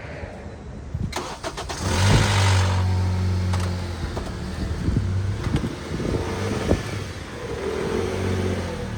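A 2008 Honda Accord's engine is started with a short burst of cranking about two seconds in, after a couple of clicks, then settles into a steady idle.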